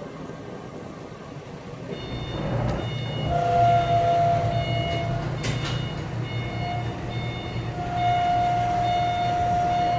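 A vehicle engine rumbling, with a horn sounding two long steady blasts over it and higher beeps coming on and off.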